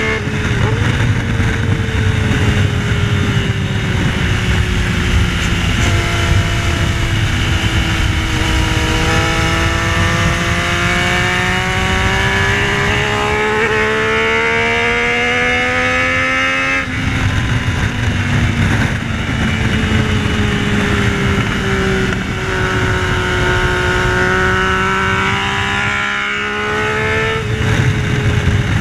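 Yamaha Tracer 900's inline three-cylinder engine under hard riding, its pitch climbing steadily as it pulls through the revs, dropping sharply once past the halfway point and then climbing again. A steady rushing noise runs underneath.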